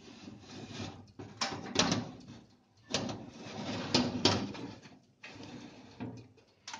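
Metal baking tray being slid into a countertop oven along its metal rails, scraping and clattering in a few short strokes, about a second and a half in, at three seconds and at four seconds.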